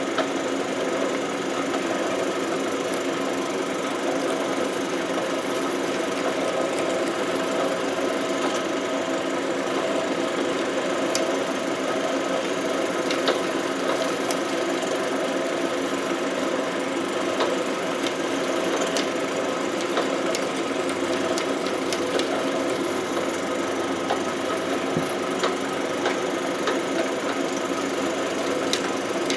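Drill press motor running steadily with a small wire brush spinning in the chuck, scrubbing the backs of steel sockets, with faint scattered ticks of metal on the bristles.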